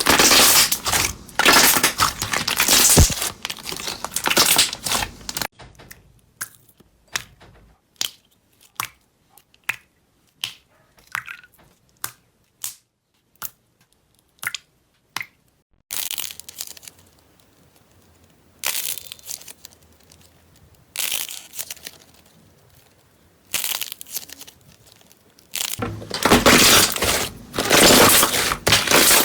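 Slime being squeezed and pressed by hand: dense crunchy crackling, with a middle stretch of single sharp pops about twice a second, then short scattered squishes before the dense crunching returns near the end.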